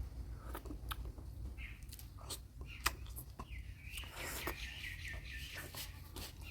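Close-up eating sounds: wet mouth clicks and smacks from chewing spicy mutton curry, in quick irregular ticks over a low steady hum. About four seconds in, a brief high chirping sound runs for a second or so.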